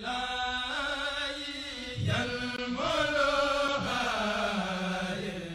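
Channel intro jingle: chant-like singing on long held notes, moving to new notes about two and three seconds in.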